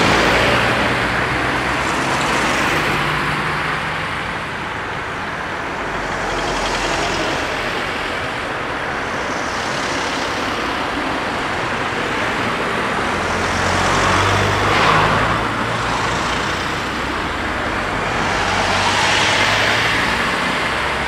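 Road traffic: cars and vans driving past one after another, engine hum and tyre noise swelling and fading as each goes by, loudest about three-quarters of the way through.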